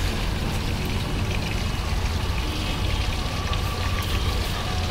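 Hot oil sizzling steadily as chicken drumsticks deep-fry, over a steady low rumble.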